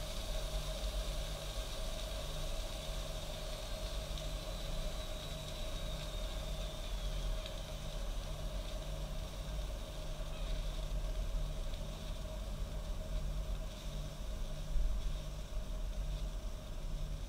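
East German Kaffee Boy K500 coffee machine running: a steady steamy hiss over a low hum, with a faint high whistle that dips slightly partway through.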